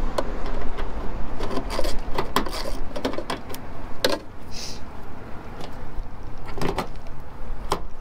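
Scattered clicks and light knocks of a screwdriver and a side-mirror mount being worked against a vehicle door, one sharper knock about four seconds in and two more near the end, over a steady low rumble.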